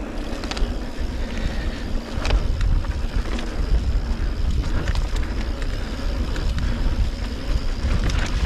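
Mountain bike rolling fast down a dirt trail: wind rumbling on the microphone over the steady noise of the tyres, with scattered knocks and rattles from the bike.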